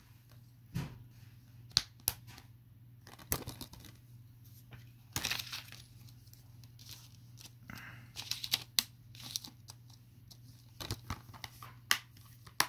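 Hard plastic Blu-ray case and its discs being handled: scattered clicks, taps and light rustles as the case is moved, turned over and set down.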